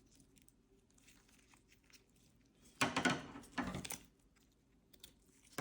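Hand-handling noise: a brief rustling crunch lasting about a second, about three seconds in, as cut wire vine stems are gathered and laid together.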